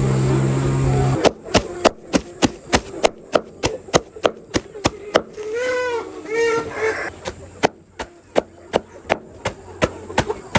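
Sharp, evenly spaced chopping strikes on wood, about three a second, starting about a second in after a low steady hum stops.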